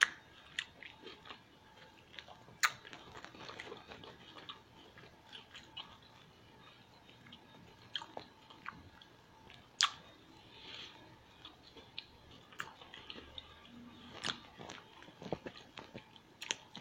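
A person biting and chewing food close to the microphone, with scattered sharp clicks and smacks through the chewing.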